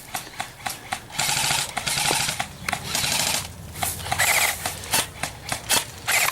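Airsoft electric guns firing: several bursts of rapid automatic fire, up to about a second long, mixed with many single sharp shots.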